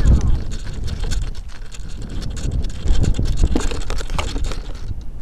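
Rumbling wind buffeting the RC airplane's onboard camera microphone, with many small clicks and rattles, loudest at first and easing as the plane comes down onto gravel; a sharper knock about three seconds in.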